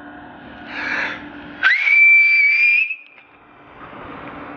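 A person's loud whistled call: one note that swoops up and holds high and steady for about a second before cutting off, sounded to summon a lost companion. A short breathy rush comes just before it.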